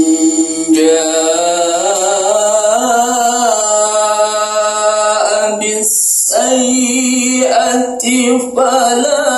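A single voice chanting unaccompanied over a public-address system, holding long notes with slow melismatic turns. It breaks off briefly about six seconds in, then takes up the next phrase.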